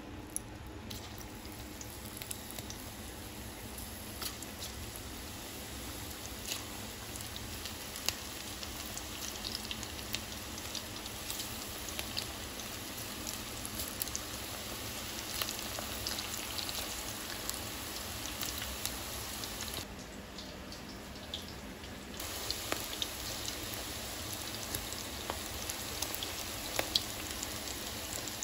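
Curry-leaf and onion pakodi deep-frying in hot oil: a steady sizzle with many small crackles and pops. The sizzle steps up a little about two-thirds of the way through.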